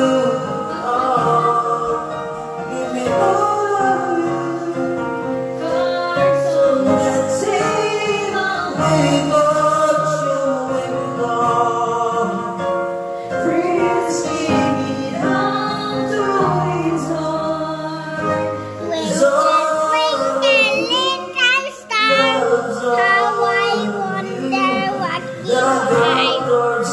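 Videoke (karaoke) singing: a voice singing into a microphone over an instrumental backing track, with wavering held notes about two-thirds of the way through.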